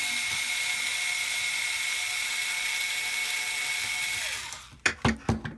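Small electric drill-driver spinning at a steady high whine while taking a screw out of an RC car's hub carrier. The whine winds down and stops about four and a half seconds in, followed by a few sharp clicks and knocks.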